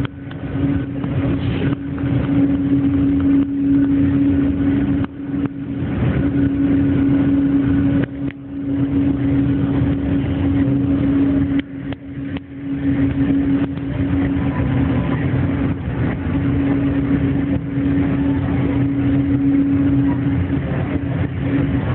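Steady engine drone with a constant low hum, from an airliner being guided in by an aircraft tug. The level dips briefly a few times.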